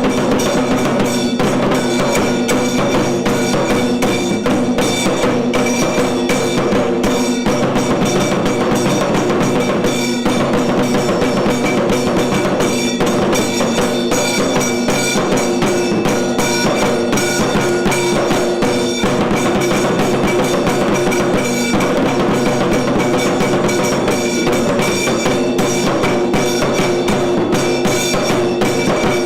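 Kailaya vadyam temple ensemble playing: dense, fast drumming and struck percussion over steady held tones, running on without a break.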